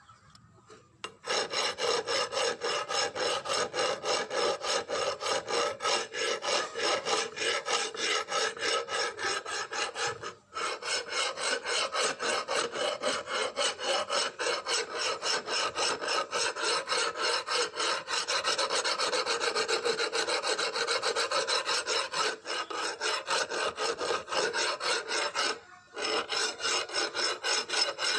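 Abrasive hand work: a file or similar tool rasping back and forth in quick, even strokes. It starts about a second in and stops briefly twice.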